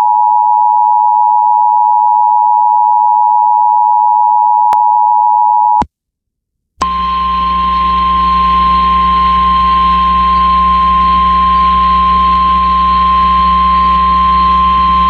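Emergency Alert System warning tones: the two-tone attention signal, two steady pitches near 1 kHz sounding together, holds for about six seconds and stops, with a click shortly before the end. After a second's gap, the single 1050 Hz NOAA Weather Radio warning alarm tone sounds steadily over radio hiss and hum, signalling that a severe thunderstorm warning message follows.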